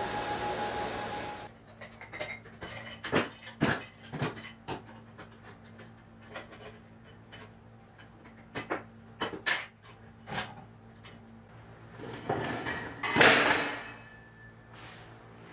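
A steady hiss that cuts off about a second and a half in, then scattered metallic clicks and clanks as toggle clamps are released on a steel welding fixture table. Near the end comes a louder clatter as the tack-welded steel tube leg frame is pulled out of the jig.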